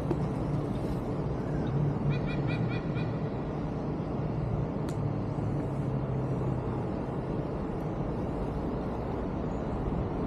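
Outdoor city ambience on a bike ride: a steady low rumble of traffic and wind on the microphone, with a quick run of four short high calls about two seconds in and a single sharp click about five seconds in.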